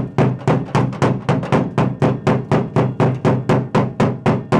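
Hammer blows in quick, steady succession, about three a second, on the fiberglass filler in a VW Type 2 bus's sheet-steel battery tray, beating it loose so it breaks up off the floor.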